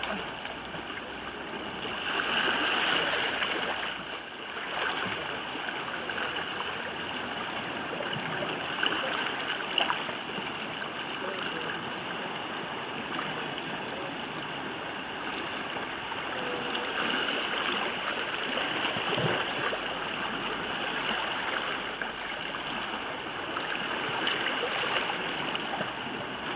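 Small sea waves lapping and sloshing against a rocky shore: a steady watery wash.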